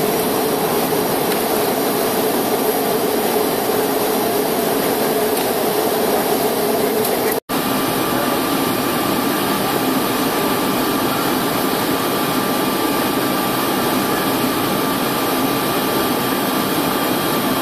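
Steady cabin noise of a Tupolev Tu-204 airliner in flight: the even rush of its jet engines and the airflow past the fuselage, with a faint steady hum. It drops out for an instant about halfway through.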